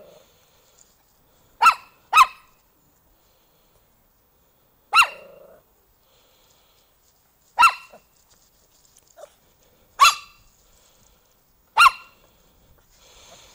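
Pomeranian barking in single sharp, high yaps, about six of them a second or two apart. This is reactive barking that carries on after whatever set her off has gone; she has to get the last word.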